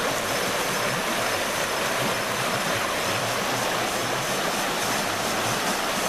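River rapids rushing steadily.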